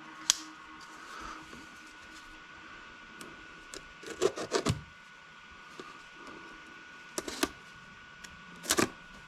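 Scattered clicks and light knocks of a knife and a boxed ESC being handled on a workbench, in small groups a few seconds apart, over a faint steady high hum.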